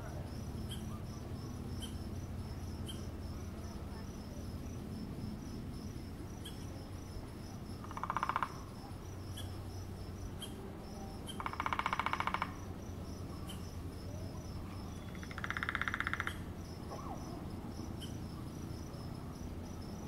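A woodpecker drumming on a dead tree trunk: three rapid rolls, each about a second long, spaced a few seconds apart. Crickets chirp steadily underneath.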